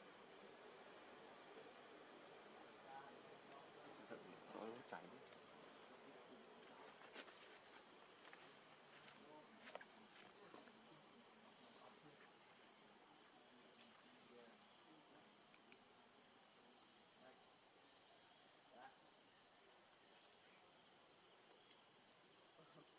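Faint, steady high-pitched insect chorus droning without a break, with a few faint short chirps about four to five seconds in.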